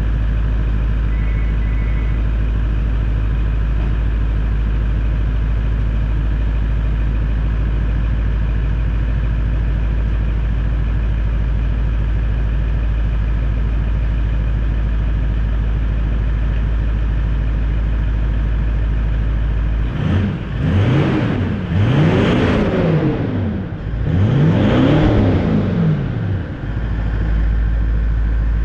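Toyota LandCruiser 200 Series V8 turbo-diesel idling through a freshly fitted 4-inch Manta DPF-back exhaust with no muffler. Near the end it is revved three times, the pitch rising and falling with each rev.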